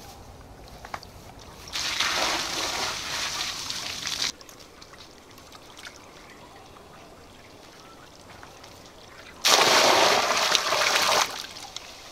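Water poured from a clay pot splashing into a shallow cement-lined pond, in two pours of about two seconds each, the second the louder.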